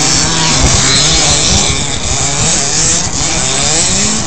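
Several radio-controlled short course trucks racing, their motors whining and buzzing in overlapping pitches that rise and fall as they speed up and slow down through the track.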